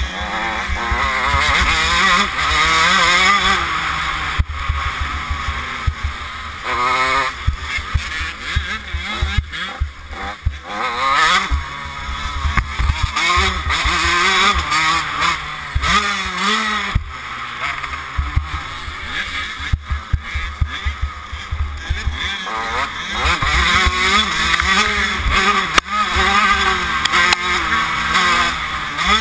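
Motocross bike engine revving up and down through the gears while riding, its pitch rising and falling again and again, heard on board with heavy wind buffeting the microphone.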